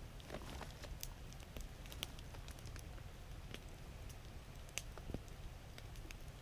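Faint, irregular small clicks and taps, a few a second, over a steady low rumble.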